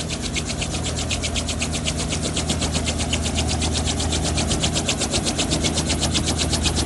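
Light helicopter running on the ground: a steady engine drone with a fast, even chopping pulse of about ten beats a second, growing slightly louder toward the end.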